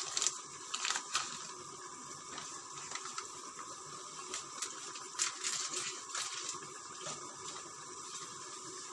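A pot of tripe cooking on a butane gas stove: a steady hiss, with a few sharp clicks and crinkles as spices are handled and added to the pot.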